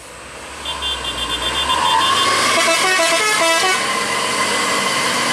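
A dump truck's telolet horn, a multi-tone musical horn, sounds first as a fast repeating high pip and then as a quick run of stepped notes, over the truck's engine running under load and growing louder about two seconds in as the truck passes.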